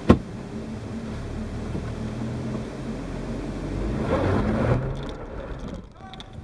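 Jeep Wrangler JK engine pulling under throttle up a steep rock climb, with a sharp knock just at the start. The engine swells louder about four seconds in, then eases off near the end as the Jeep crests.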